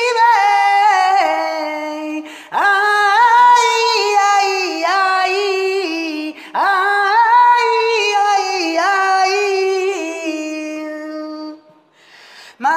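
Unaccompanied singing in a high, woman's voice: long held notes without words, sung with ornamented, wavering pitch. They come in three phrases, each breaking off sharply; the last fades away shortly before a new phrase begins at the very end.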